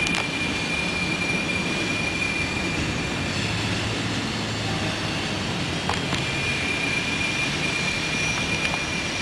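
Freight train cars rolling past, steady wheel-on-rail rumble with a few clicks from the wheels. A thin, high squeal from the wheels comes and goes.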